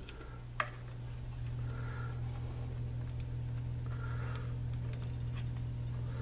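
Small clicks and ticks of wires being handled and routed inside a Drake AC-4 power supply's metal chassis, with one sharp click about half a second in, over a steady low hum.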